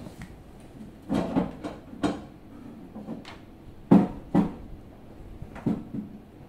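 A series of knocks and clunks as a 43-inch flat-screen TV's rear hooks bang against a steel wall-mount bracket while the set is lifted off. The TV will not seat and lock on the bracket. The loudest pair of knocks comes about four seconds in.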